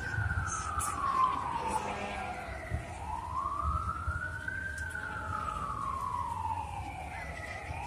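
A siren wailing in a slow rise and fall, each cycle climbing for about two seconds and falling for about three, with a low rumble underneath.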